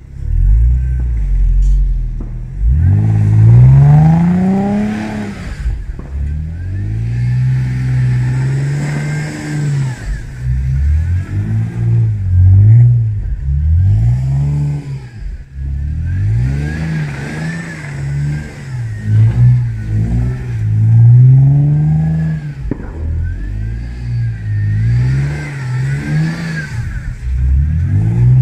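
Audi A4 B6 3.0 V6 quattro engine revving hard again and again, its pitch rising and falling with each burst of throttle as the car is driven in donuts and slides on snow.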